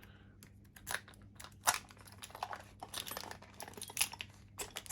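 Scattered light clicks and small metallic rattles of a Master Lock Magnum padlock and its keys being handled, in irregular taps with a few sharper knocks about two seconds and four seconds in.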